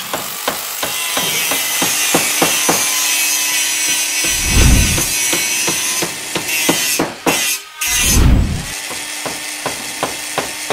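Sawing and power-tool noise from building renovation, densest in the first several seconds. Over it run sharp clicks about three a second and a deep boom about every three and a half seconds.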